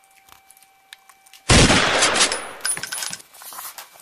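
A few faint clicks, then about a second and a half in, a sudden loud blast of gunfire that dies away over about a second and a half with scattered crackles.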